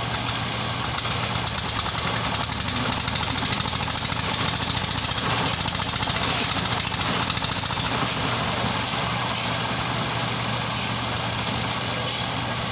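A heavy machine engine running steadily on a construction site. From about a second in until about eight seconds in, a fast, even rattling hammering lies over it, and after that come scattered sharp clinks.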